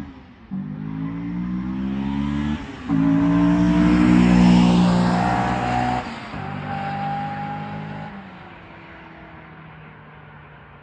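Honda S2000's four-cylinder engine, breathing through a 60 mm test pipe in place of the catalytic converter and the stock exhaust, accelerating hard with its pitch climbing through the revs, broken by quick upshifts about half a second in and about two and a half seconds in. It peaks around four to five seconds, drops off sharply about six seconds in, runs on more steadily, then fades away from about eight seconds.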